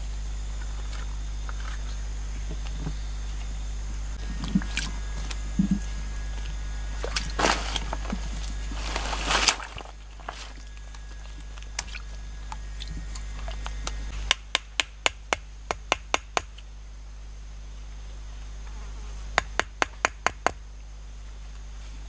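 Water splashing and sloshing as hands work in a shallow stream. Later come two quick runs of sharp knocks, about four a second, from a machete chopping wood.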